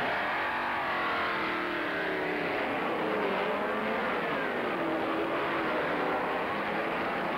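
A field of sports racing cars accelerating away together from a race start, many engines revving at once with overlapping rising and falling pitches.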